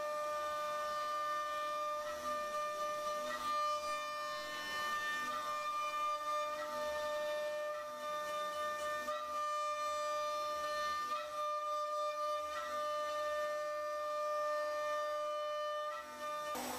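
CNC router spindle running at a steady high speed while milling wood, giving a constant whine with small changes every second or two as the cutter works. A short sharp break comes near the end.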